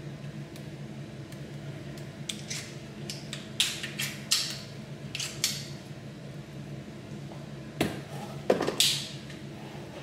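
Scattered light clicks and metal clinks from handling a Snapdrill pipe hole-cutting attachment and setting it into its plastic tool case, with a few louder knocks about eight seconds in, over a low steady hum.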